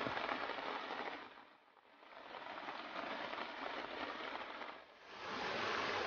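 Steady hiss of rain and running rainwater, dropping away twice for a moment.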